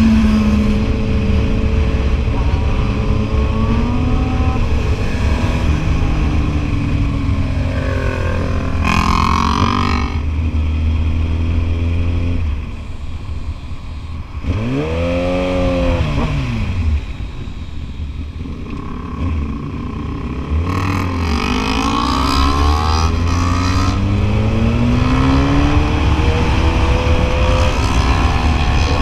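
Sport motorcycle engine pulling hard through the gears, its note climbing and dropping back at each shift. It eases off for several seconds midway, with one quick rise and fall in pitch, then climbs through the gears again.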